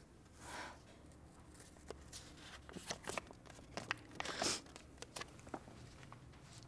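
Soft rustling and crinkling with scattered small clicks and crackles, like cloth and paper being handled or stepped on. There are two longer swishes, about half a second in and about four and a half seconds in.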